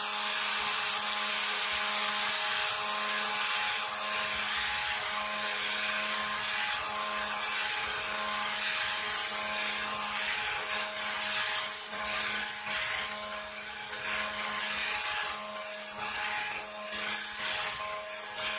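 Electric stick blender running continuously in raw hot-process soap batter of oils and lye water, a steady motor hum over churning. About halfway through the sound starts to waver as the blender is moved around the pot to bring the batter toward trace.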